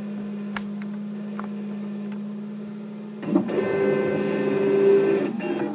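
Home-built 3D printer: a steady hum, then about three seconds in its stepper motors start driving the print head, whining in several shifting tones for about two seconds as the first test print begins.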